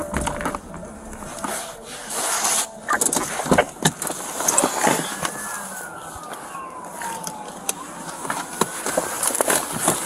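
Rustling and rubbing against a body-worn camera's microphone, with many sharp clicks and knocks as the wearer moves in and out of a car. A faint tone falls slowly in pitch about halfway through.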